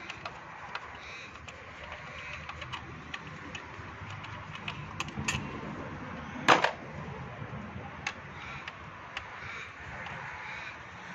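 Hand tool with a hex bit socket turning out the throttle body's Allen bolts: scattered light metallic clicks, with one louder metal clink about six and a half seconds in.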